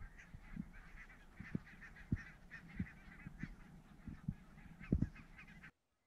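Distant flock of geese honking, many short overlapping calls, with a few soft low thumps underneath; it cuts off suddenly near the end.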